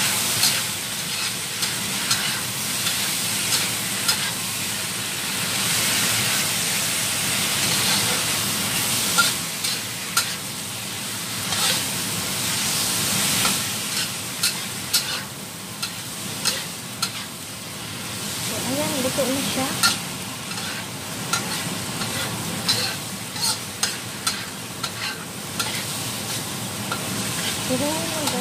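Squid and cucumber stir-frying in a wok: a steady sizzle, with a metal spatula scraping and clacking irregularly against the pan as the food is tossed.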